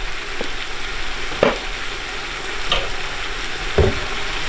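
Onions, bell peppers and tomatoes sizzling as they fry and stew in a kazan, a steady crackle with a few sharp pops about once a second.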